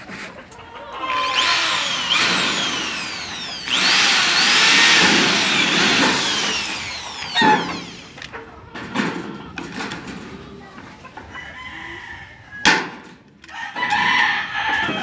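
Corded electric hand drill boring rivet holes through the painted sheet-metal seam of a box gutter corner. It starts with a long stretch of drilling whose whine shifts in pitch, then gives shorter bursts and a sharp click near the end.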